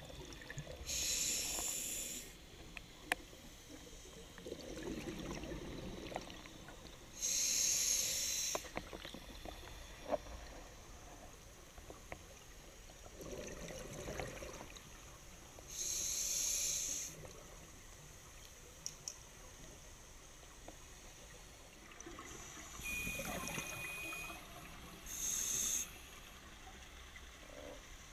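Scuba diver breathing through a regulator underwater: slow breaths several seconds apart, each a hissing inhale followed by a low bubbling exhale.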